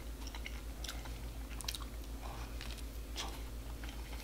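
A person chewing a mouthful of hot dog in a bun with the mouth closed: soft, irregular wet clicks and smacks a few times a second.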